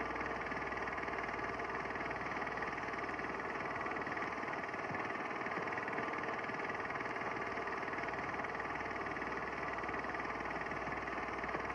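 A steady, unchanging droning hum of machine-like noise with no breaks.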